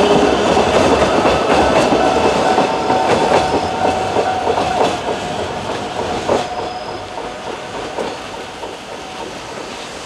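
Narrow-gauge (762 mm) electric train running along the track and pulling away, its wheels clacking over the rail joints, fading steadily as it recedes.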